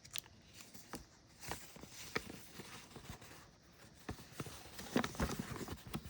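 Light handling noises of a cardboard model-train accessory box and its paper contents: scattered taps, clicks and rustles, busiest about five seconds in.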